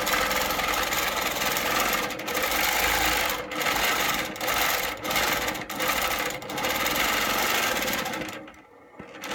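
Innova longarm quilting machine running and stitching while being hand-guided through a curve, with several short breaks in the middle, then stopping near the end.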